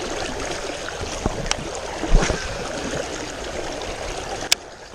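River water running steadily, with a few small handling clicks and one sharp click near the end.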